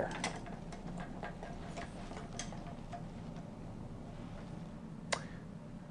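Faint clicks and taps of plastic respiratory-circuit fittings and tubing being handled over the first couple of seconds, over a low steady hum. One sharper single click about five seconds in.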